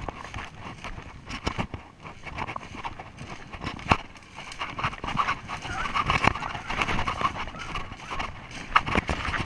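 Footsteps of a person walking briskly through wet leaf litter and mud, a steady series of scuffs and crunches at roughly two steps a second.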